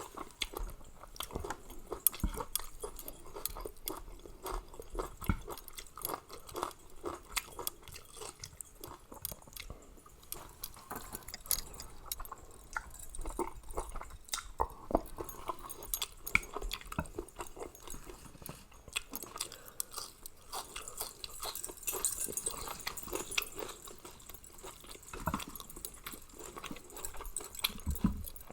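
A person chewing a spicy Thai mixed-seafood salad close to the microphone, with many short, irregular mouth clicks.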